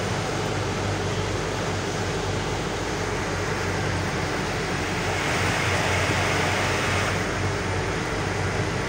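Truck's diesel engine running steadily under a low hum, with road and wind noise inside the cab. A rushing noise swells for a couple of seconds about five seconds in.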